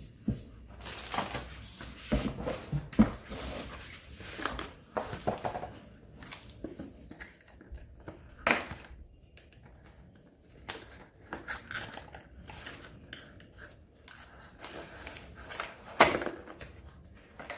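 Irregular rustling, clicks and knocks of tools and packaging being handled during an unboxing, with a few sharper knocks, about three seconds in, near the middle and near the end.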